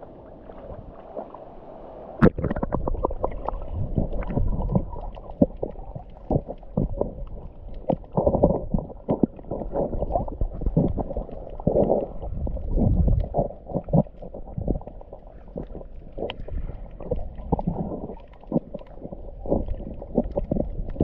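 A sharp knock about two seconds in, then dull, muffled gurgling and sloshing of water around a microphone held underwater, with many small knocks.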